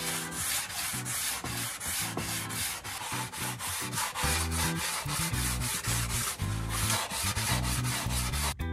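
Hand sanding block rubbing back and forth along a balsa wing's leading edge in quick, even strokes, about three a second, rounding it off; the strokes stop abruptly near the end.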